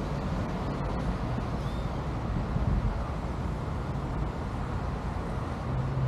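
Steady street ambience of passing road traffic, with a low engine hum that grows steadier near the end.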